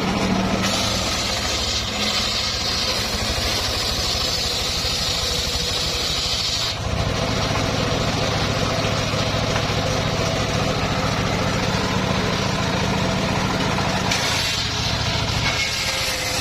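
Engine driving a homemade circular sawmill, running steadily. A high hiss rides over it for the first seven seconds or so and comes back near the end.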